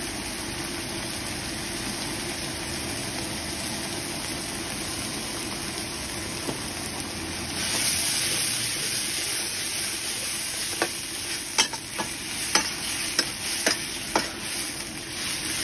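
Sauce simmering and sizzling in a wok, the hiss swelling about eight seconds in. From about eleven seconds on, a spatula scrapes and clicks against the wok as the sauce is stirred.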